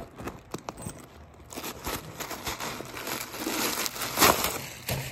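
Tissue-paper stuffing crinkling and rustling as a hand pulls it out of a zipped bag. The rustles come in an irregular run and are loudest about four seconds in.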